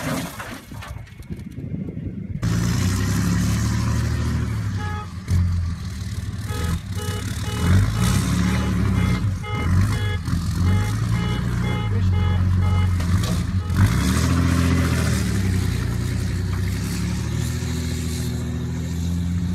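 Diesel pickup truck engine running and pulling the wrecked truck across soft dirt, starting in loud about two seconds in, with music playing over it that carries a run of short, evenly timed notes through the middle.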